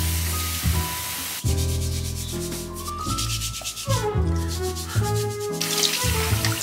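A stiff vegetable brush scrubbing carrots in fast, rasping strokes over background music with a steady beat. Tap water runs onto the carrots near the end.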